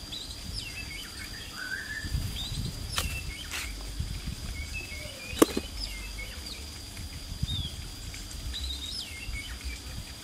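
Wild birds chirping outdoors, short scattered calls throughout, over a steady high-pitched tone, with a few sharp clicks, the loudest about five seconds in.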